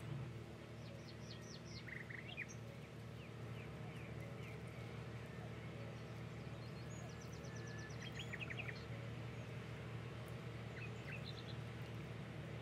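Birds chirping now and then, a few short runs of quick chirps, over a steady low hum.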